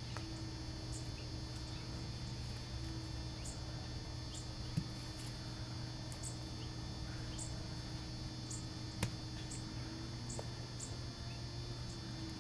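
Steady low hum with faint high chirps repeating about once a second, broken twice by a light knock from a child's golf club striking a plastic ball or the ground, the second a little sharper.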